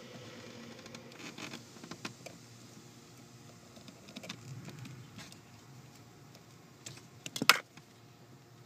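Small clicks and rustling from wires and a plastic wiring-harness connector being handled by hand, with a short cluster of sharper clicks near the end.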